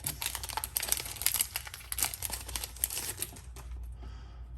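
Foil booster-pack wrapper of Yu-Gi-Oh! cards crinkling as it is handled and torn open: a dense crackle that thins out after about three seconds.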